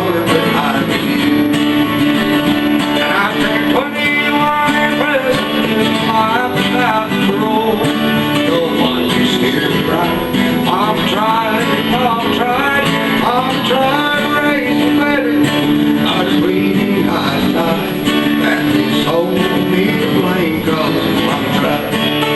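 Live country music on acoustic guitars: steady strummed chords under a melodic instrumental break, with no singing.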